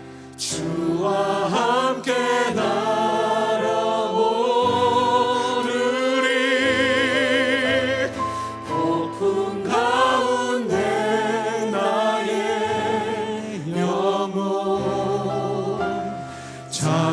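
Worship singing with instrumental accompaniment: voices hold long notes with vibrato over a steady bass line, pausing briefly near the end.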